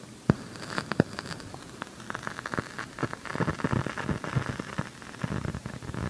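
KRK Rokit RP5 G2 studio monitor popping and crackling with static: two sharp pops in the first second, then denser, irregular crackle from about two seconds in. It is a fault that the owner finds dies away once the monitor has warmed up for a few minutes, and it is not a mains-socket problem.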